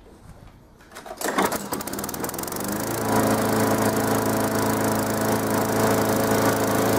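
A primed lawnmower engine is pull-started and catches about a second in. It picks up speed for a couple of seconds, then settles into steady running, the hard-starting mower now going after clean fuel and a new spark plug.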